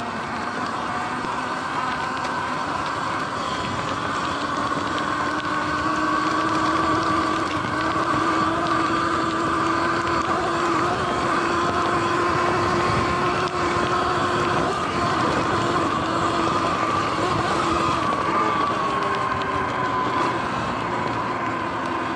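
Sur-Ron electric dirt bike's motor whining steadily under way, its pitch drifting with speed and dipping near the end as the bike slows, over a rush of wind and tyre noise.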